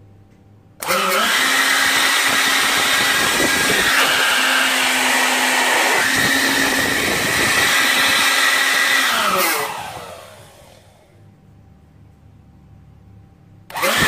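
A 775 12-volt DC motor in a PVC pipe housing switched on by clipping its battery leads: it spins up sharply about a second in and runs steadily at full speed with a high hum and rushing hiss. After about eight and a half seconds it is cut off and winds down with falling pitch, then starts again near the end.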